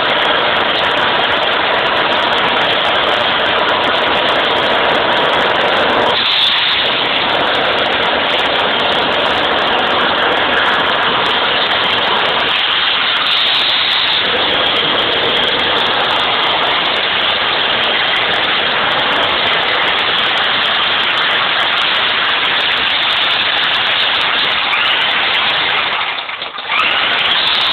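Electric demolition hammer chiselling into rock, its rapid hammering running continuously. It stops briefly about a second before the end, then starts again.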